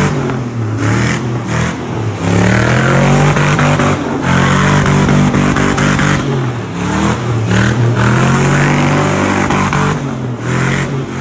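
Nissan Patrol's swapped-in LQ9 Vortec 6.0-litre V8 revving hard and dropping back again and again while spinning donuts, the engine note rising and falling several times over a steady hiss of spinning 42-inch Irok tyres.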